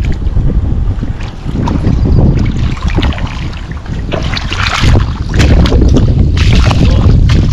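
Wind buffeting the microphone with a heavy rumble, with louder rushing bursts of noise about four seconds in and again about six and a half seconds in.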